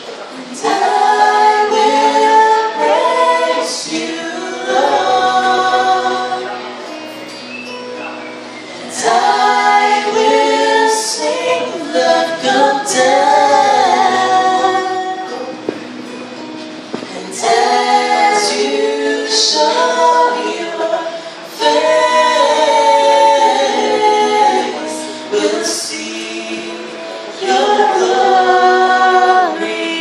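A man and a woman singing a Christian worship song as a duet into microphones, with acoustic guitar accompaniment. The song moves in sung phrases separated by short gaps.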